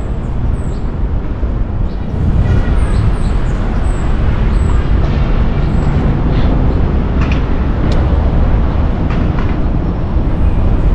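Steady, loud low rumble of a city bike ride heard on a moving camera: wind and road noise, getting louder about two seconds in, with scattered light clicks and a few brief high chirps.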